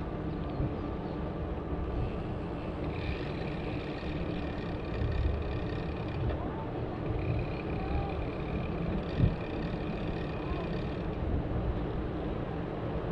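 Traffic and road noise heard while riding, a steady low rumble with wind buffeting and a steady hum, and a short thump about nine seconds in.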